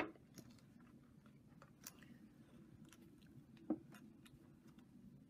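A few faint, small clicks and taps from handling a MacBook Air plastic keytop and a small prying tool. The sharpest click is right at the start and another comes a little before four seconds in.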